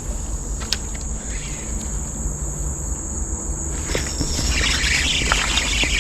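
Steady high-pitched insect drone over a constant low rumble. About four seconds in, a louder, rougher hiss joins it.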